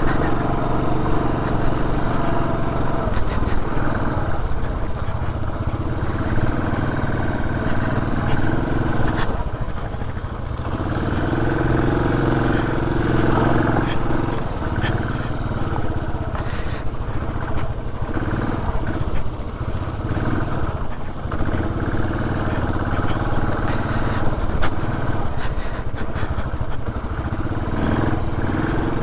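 Benelli TRK 502's parallel-twin engine running as the bike is ridden over a rough trail, its note shifting up and down with the throttle, with a few short knocks.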